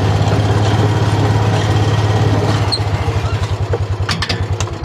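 Small vehicle engine running steadily as it is ridden along, then easing off and fading from about three seconds in, with a few light clicks near the end.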